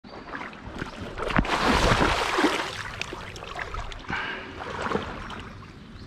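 Creek water splashing and sloshing as a person falls into a shallow creek. It is loudest for about a second from a second and a half in, with knocks among the splashing, then settles into lighter sloshing.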